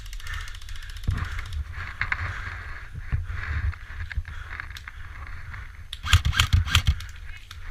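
Handling and movement noise with a steady rumble of wind on the microphone, then about six seconds in a rapid string of sharp clicks lasting nearly a second: an airsoft gun firing a burst.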